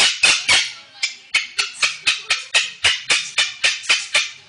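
Salmon-crested (Moluccan) cockatoo giving a rapid run of short, harsh screeches, about four a second, stopping just before the end.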